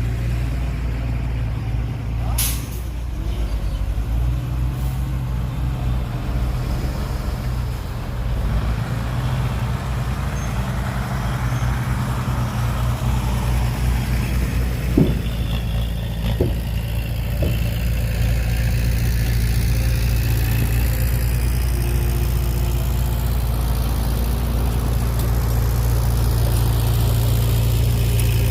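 Heavy diesel engine running steadily, getting a little louder in the second half, with a sharp click early and a few short knocks around the middle, the loudest of them about halfway through.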